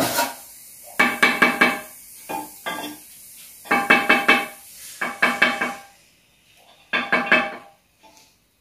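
A freshly laid fired-clay brick being tapped down into its clay bed with a hand tool to bring it level. The taps come in quick runs of three to five, with a few single taps between, each one a sharp knock with a short bright ring.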